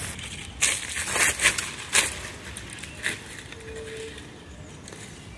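Footsteps crunching through dry leaf litter and twigs: a few irregular crunches in the first two seconds and one more about three seconds in, then quieter.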